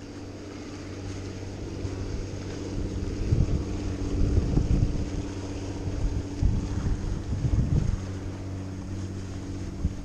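A boat's outboard motor running steadily with a low hum, its propeller churning the water, while gusts of wind buffet the microphone.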